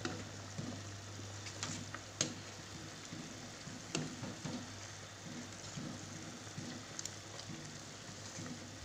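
A metal ladle stirring vegetable soup in a steel pot, with a few sharp clinks of the ladle against the pot over a steady low hum.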